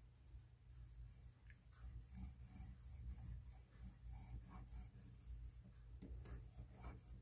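Faint rubbing and light scraping of metal tongs pressing bleach-soaked cotton strips onto a countertop caulk joint, with a couple of light clicks about six seconds in. A low steady hum runs underneath.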